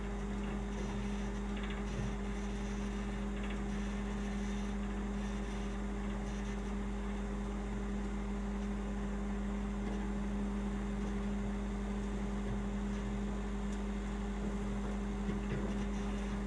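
Microwave oven running with a steady hum while heating a bar of soap.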